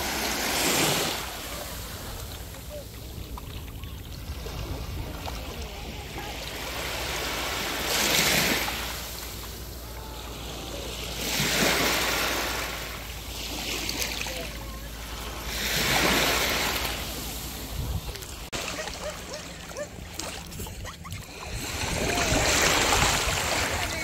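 Small waves washing up a pebbly, shelly shoreline, the surf hiss swelling and falling back about five times, every four seconds or so.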